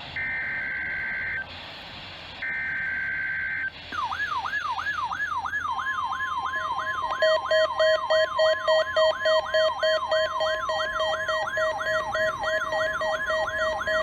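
NOAA Weather Radio alert signalling: two one-second bursts of the SAME digital header's shrill two-pitch data tones, then a siren-like warble rising and falling nearly three times a second. About two seconds into the warble the steady 1050 Hz warning alarm tone joins it, along with a lower pulsing beep.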